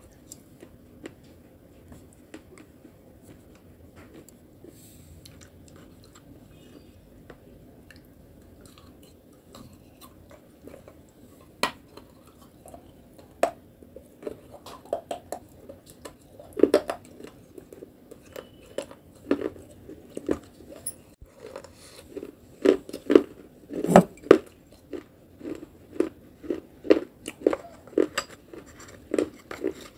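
Close-up mouth sounds of a person chewing and smacking a clay paste: faint at first, then from about the middle growing into loud, sharp smacks in a steady rhythm of about two a second.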